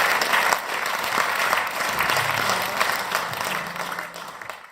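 Audience applauding at the end of a song, dense hand-clapping that dies away near the end.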